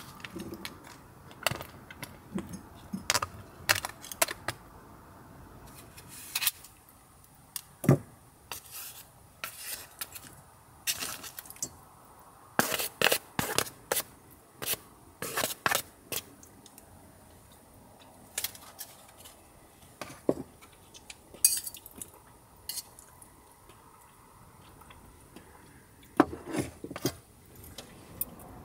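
Chopsticks clinking and scraping against small stainless-steel bowls and plastic food containers as side dishes are served out: scattered sharp clicks with quiet gaps, busiest about halfway through.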